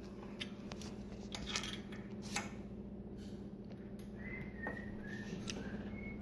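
Allen key working the seat clamp bolt on a bicycle seat post, giving scattered sharp metal clicks and clinks as the bolt is tightened. A few short, high-pitched chirps come in the last two seconds.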